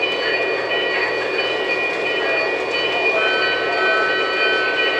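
Lionel O gauge model trains running on three-rail track: a steady rolling rumble of wheels and motors, with steady high-pitched tones switching on and off over it.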